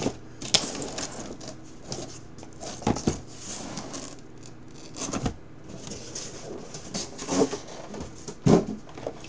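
A cardboard shipping case is opened and shrink-wrapped hobby boxes are handled and stacked: scattered scrapes, rustles and light knocks of cardboard and plastic wrap, the loudest about eight and a half seconds in.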